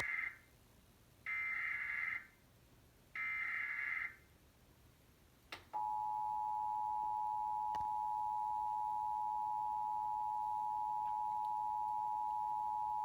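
Emergency Alert System required monthly test: three SAME header data bursts, about a second each with about a second between them, the first already under way, then the steady two-tone EAS attention signal starting about six seconds in and held for about eight seconds.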